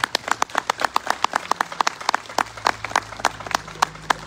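Audience applauding, with many separate hand claps heard distinctly at an uneven rhythm.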